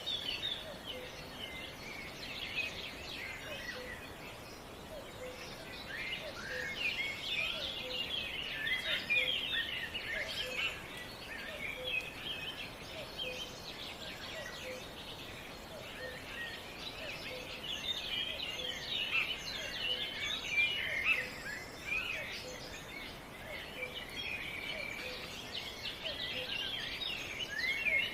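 A chorus of many small birds chirping and singing at once, with a faint low note repeating about once a second underneath.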